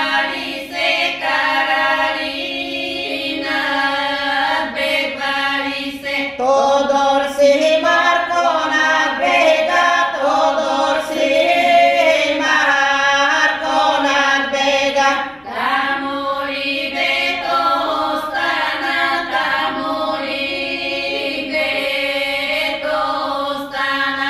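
A group of women singing a Bulgarian village folk song without accompaniment, one part holding a steady drone under the melody. It pauses briefly for breath twice.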